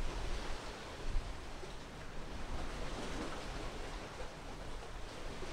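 Outdoor wind buffeting the microphone in a gusty low rumble, over a steady rush of wind and sea.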